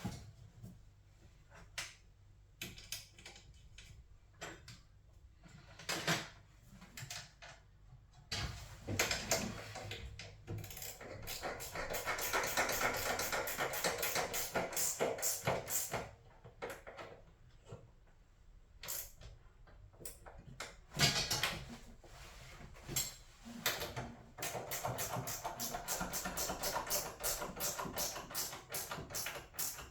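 Scattered clicks and knocks of hands-on mechanical work, with two runs of rapid, even clicking lasting a few seconds each, about a third of the way in and again near the end.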